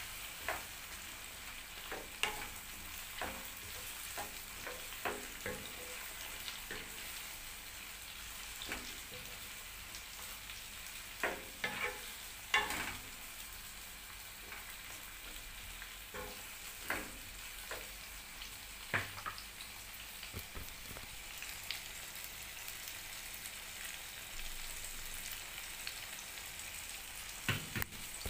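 Diced zucchini, red bell peppers and onion frying in oil in a metal pan: a steady sizzle, with irregular knocks and scrapes of a wooden spoon stirring against the pan, several close together midway and another near the end.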